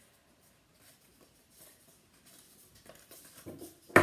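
Faint rustling and light tapping of paper cap pieces being handled, with a few small knocks near the end.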